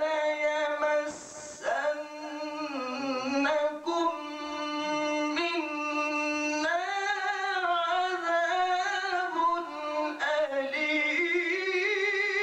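A man reciting the Quran in the melodic tilawat style into a microphone: long held notes that waver and slide in pitch, in a few drawn-out phrases with short breaks between them.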